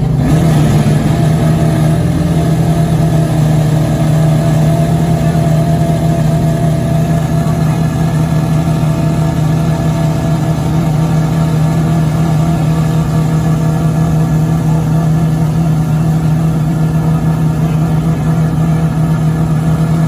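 Maserati MC12's V12 engine idling steadily through its quad exhaust tips, after a short rise and fall in revs near the start.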